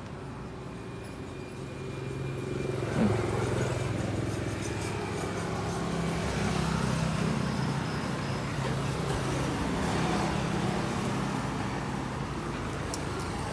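A motor vehicle's engine running nearby with a steady low hum that swells over several seconds and then eases off, with one sharp knock about three seconds in.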